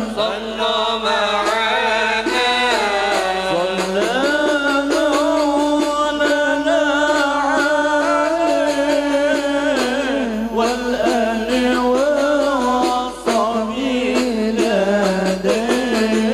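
Men singing an Arabic devotional maulid syair through microphones: a lead voice holding long, ornamented melodic lines that slide and waver in pitch, without a break.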